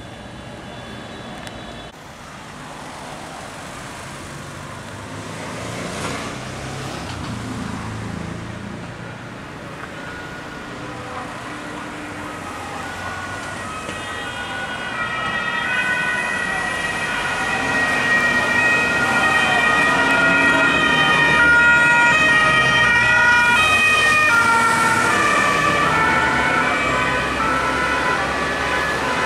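Police sirens on an escort convoy: several sirens sounding together with steady tones that step between pitches, coming in about halfway and growing louder as the vehicles approach, over passing road traffic.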